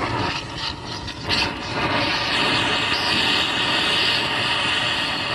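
Oxy-acetylene torch flame hissing steadily as it heats a lug nut stud to cut it out. The hiss grows louder and sharper about two seconds in as the flame bears on the metal.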